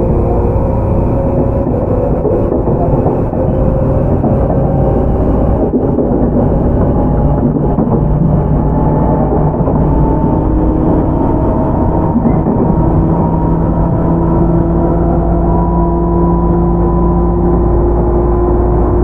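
Running noise inside a Tobu 10030 series field-chopper electric train's motor car: steady rumble of wheels on rail with traction motor whine, its tones rising slowly in pitch as the train gains speed.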